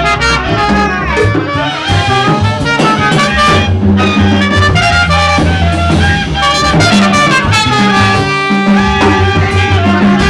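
Live jazz jam: a trumpet and a clarinet play melody lines together over a bass line and drums.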